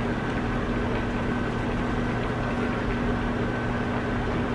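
Steady kitchen background hum with an even hiss over it, while a pot of ziti pasta boils on the electric stove.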